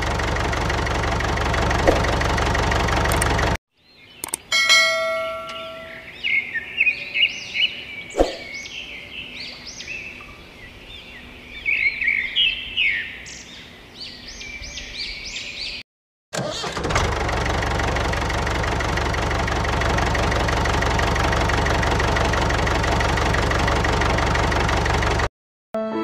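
A steady engine running sound, which cuts out after a few seconds. Then a bell chime is followed by birds chirping, with one sharp knock. The engine sound comes back about sixteen seconds in.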